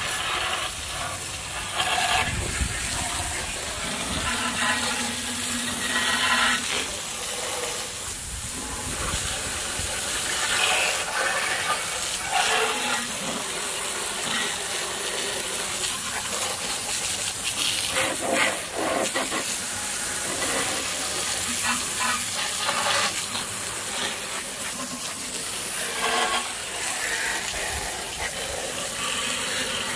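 Pressure washer jet hissing as it blasts oily grime off a lawnmower's engine and deck, its sound shifting every few seconds as the spray moves over different surfaces.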